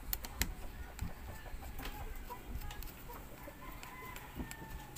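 Chickens clucking faintly in the background, with a few sharp clicks and taps of small metal parts being handled, the loudest in the first half-second.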